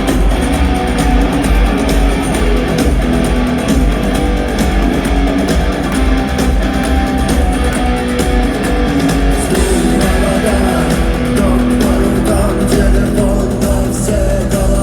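Rock band playing live with guitars over a heavy, steady low end, and a singing voice coming in near the end.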